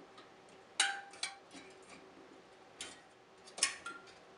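Needle-nose pliers clicking against the thin metal fins of a Samsung refrigerator's evaporator coil as bent fins are straightened: about six sharp metallic ticks, irregularly spaced, two of them with a brief ring.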